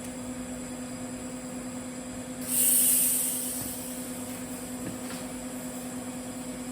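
Steady electrical hum of a TIG welding setup. About two and a half seconds in, a sudden loud hiss starts and fades away over about a second and a half, and a faint tick follows.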